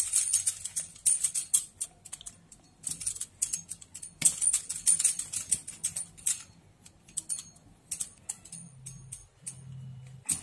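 Hands working small balls of oiled dough on a wooden rolling board: quick sticky clicks and smacks in two dense runs, then scattered clicks toward the end.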